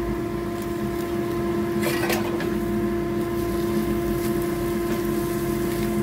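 A steady machine hum throughout, with a short scrape of a wooden spatula stirring vegetables in a frying pan about two seconds in.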